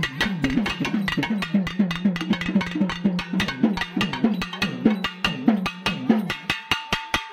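Processional barrel drums played with sticks in a fast, dense rhythm over a low droning hum that swoops down in pitch about twice a second. A steady higher tone joins near the end.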